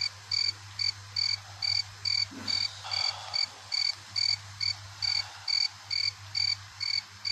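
Night-time chirping, cricket-like: one short high chirp repeated evenly about two and a half times a second, over a steady low hum.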